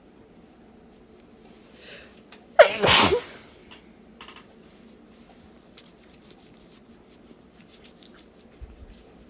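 A woman's single stuffy sneeze: a short faint breath in, then one sudden loud burst about two and a half seconds in that starts on a falling pitch and lasts under a second.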